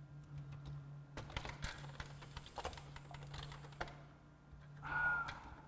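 Scattered light plastic clicks and rattles from the CD changer's disc-magazine mechanism being worked by hand to free a jammed magazine, over a faint steady hum.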